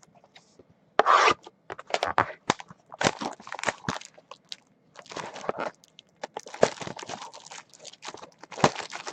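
A sealed mini box of trading cards being ripped open by hand: irregular crackling, tearing and scraping of the packaging, starting about a second in.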